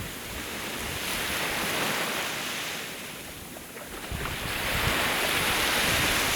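Sea waves washing onto the shore, two swells of hiss that build and fade, the second from about four seconds in. Wind buffets the microphone with low rumbles in the second half.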